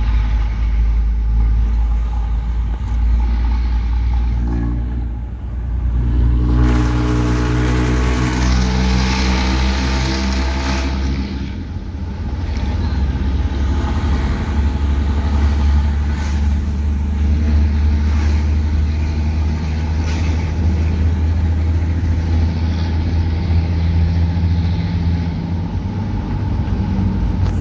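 Old truck's diesel engine and exhaust running loud with a deep steady rumble. The engine note swells louder and higher from about six to eleven seconds in, then settles back to a steady drone.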